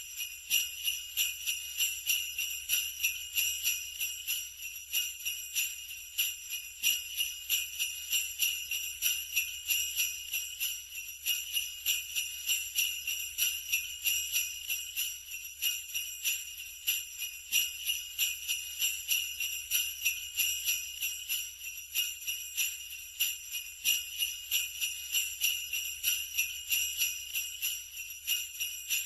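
Sleigh bells shaken in a steady, quick rhythm, a continuous bright jingling.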